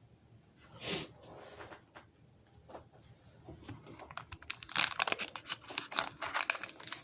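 Foil wrapper of a Pokémon booster pack crinkling and tearing as it is opened, a short rustle about a second in, then a dense, growing crackle from about four seconds in.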